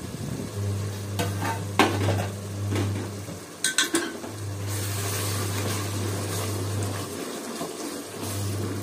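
Tomato-and-yoghurt gravy sizzling in a metal pot while a wooden spatula stirs it, with knocks and scrapes against the pot in the first half and the sizzle louder from about halfway. A steady low hum runs underneath.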